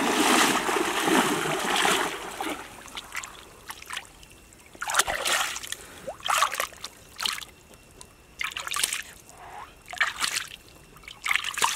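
Shallow stream water splashing as a person wades quickly through it for the first couple of seconds, then about six separate splashes and trickles as hands scoop water over a large crab to wash it.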